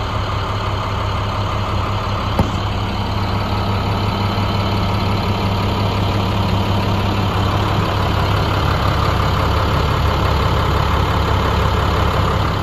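International MaxxForce DT 7.6-litre turbo diesel idling steadily, with a single sharp click about two and a half seconds in.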